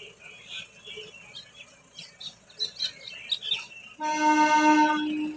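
Small birds chirping, then about four seconds in a loud, steady single-note horn blast that lasts about a second and a half and cuts off sharply.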